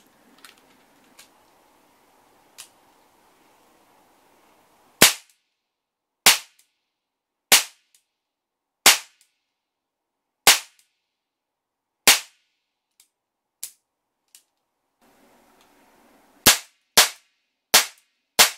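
HWS Type 26 revolver model gun firing caps: a few light clicks as the gun is handled, then six loud, sharp cap shots about a second and a half apart, followed by three faint clicks. Near the end, five more cap shots follow in quick succession, about two a second.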